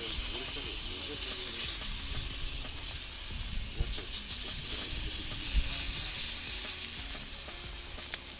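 Pieces of catfish frying on a hot grill, giving a steady, high sizzle with fine crackling.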